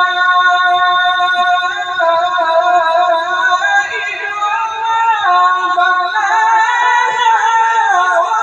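A male reciter chanting the Quran in a high voice, drawing out a single syllable as a long melismatic line: a steady held note for about two seconds, then stepping and winding up and down in ornamented turns.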